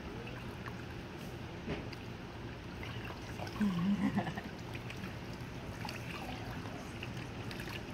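Water trickling and splashing as Labrador puppies are washed with wet washcloths in shallow tubs of water, with a few small knocks. A short low vocal sound comes about four seconds in.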